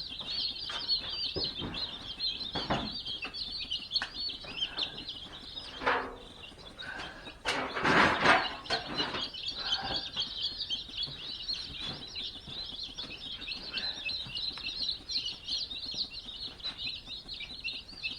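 A brooder full of baby chicks peeping constantly, many high chirps overlapping. The peeping dips briefly about six seconds in, and a louder noise of about a second comes just after.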